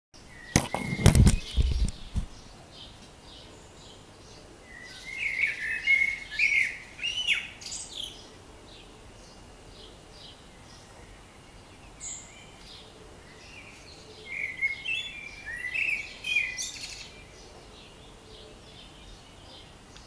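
Eurasian blackbird singing two warbled song phrases, about five and fourteen seconds in, each a couple of seconds long and ending in high squeaky notes, with faint chirps from other birds in between. A few loud knocks sound in the first two seconds.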